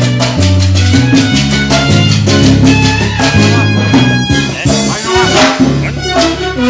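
Live band playing upbeat Latin dance music, with a steady beat of drums and percussion under bass notes and sustained higher notes.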